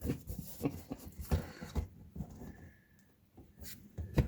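Scattered short clicks and knocks of hands working plastic zip ties and a car's plastic front bumper cover: several in the first two seconds, a quiet stretch, then a couple more near the end.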